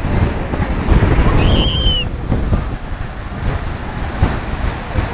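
Sea waves washing in and breaking over shallow water, with wind buffeting the microphone; the wash swells about a second in. A short, high whistle-like tone sounds about one and a half seconds in.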